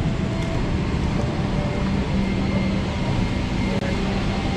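Steady cabin noise inside a parked Boeing 777-300ER: air-conditioning rush over a low, even hum.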